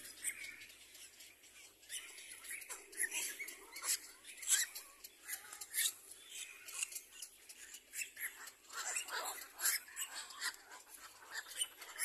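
Cormorant chicks calling from the nest: a quick, irregular run of short high squeaks and clicks, with a few lower, drawn-out calls about three seconds and nine seconds in.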